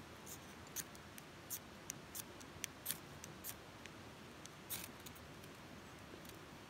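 Ferro rod scraped with a striker, a dozen or so short, sharp scrapes at an irregular pace with a longer stroke near five seconds in. The strokes throw sparks into tinder at the base of a stick teepee until it catches.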